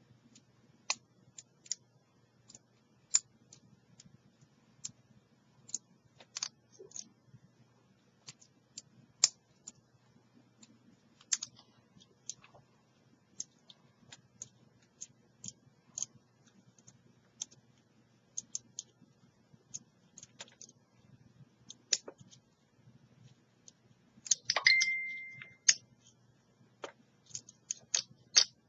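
Lock pick and tension wrench working the pins of a small Master Lock 30mm padlock during single pin picking: irregular small metal clicks and ticks over a faint low hum. Near the end comes a louder scraping rattle with a brief high squeak.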